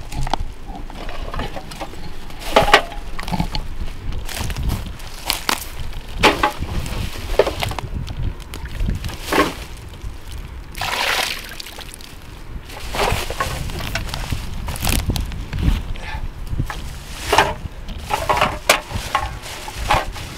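Irregular rustling and crackling of a black plastic bin bag and dry reed stalks as litter, including a plastic bottle, is picked out of the verge and dropped into the bag, with a longer rush of rustling about eleven seconds in.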